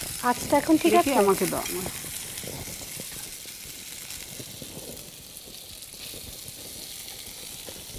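Chopped onion frying in oil in a non-stick wok, sizzling steadily while a spatula stirs and scrapes it around the pan.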